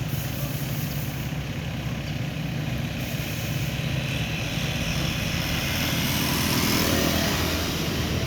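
Motor vehicle engines running on a road, with a steady low hum and traffic noise that swells to its loudest about six to seven seconds in.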